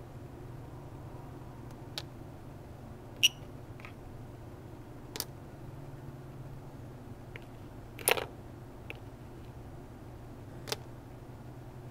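Metal tweezers clicking and tapping on the game's Lego pieces and foil-lined cavities: about six separate sharp clicks. About three seconds in comes a very short high beep from the game's buzzer, the loudest sound, as the tweezers touch the aluminium foil and close the circuit. A steady low hum runs underneath.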